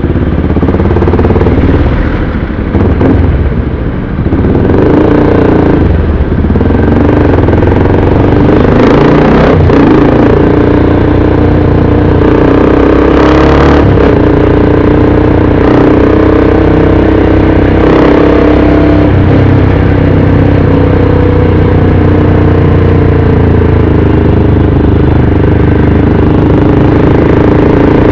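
Motorcycle engine running under way, picking up speed in the first few seconds and then holding a steady pitch while cruising.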